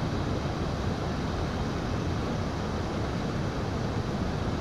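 Steady rushing noise of wind buffeting the microphone over a flowing, flood-swollen river.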